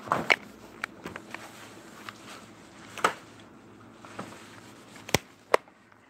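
A handful of sharp knocks and clicks at uneven intervals, with the two loudest close together near the end.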